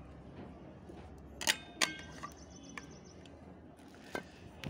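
Milton Thermosteel stainless steel flask being handled and its plastic lid screwed on. Two sharp clicks come about one and a half seconds in, followed by a few lighter clicks and taps.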